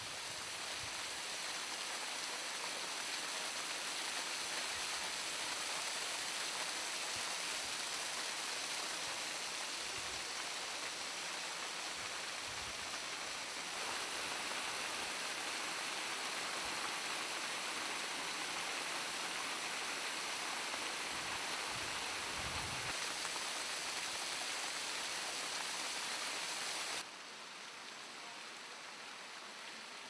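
Water from a snowmelt-fed transient waterfall pouring and splashing down rock cliffs as a steady rush. It drops abruptly to a quieter rush about three seconds before the end.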